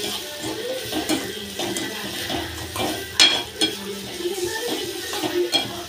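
Metal spoon scraping and clinking against a metal pan while stirring onions, tomatoes and curry leaves frying in oil, with a sizzle underneath. One louder clank about three seconds in.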